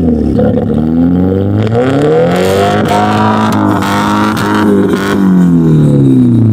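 Car engine revved up, held high for a couple of seconds and let fall back, heard at the exhaust fitted with a clip-on turbo whistle; the exhaust note covers everything and no whistle comes through, which the owner puts down to the car's large silencer.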